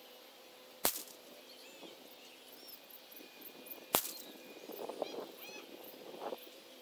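Two shots from a CZ 455 rimfire rifle in .17 HMR (Hornady Magnum Rimfire), about three seconds apart, fired at a 100-metre target and heard from the target end. Small birds chirp faintly between and after them.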